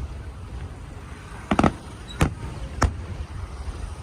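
Aerial fireworks shells bursting: a quick run of three bangs about a second and a half in, then single bangs a little after two seconds and near three seconds, over a steady low rumble.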